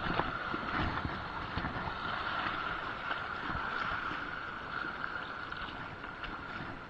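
Shallow seawater splashing and sloshing close to the microphone, over steady wind noise on the microphone.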